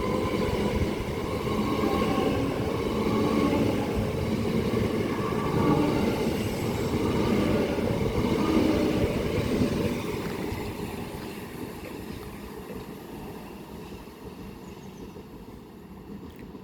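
Class 375 Electrostar electric multiple unit running empty through the station on the fast line, with wheel and motor noise. It is loud for the first ten seconds or so, then fades as it draws away.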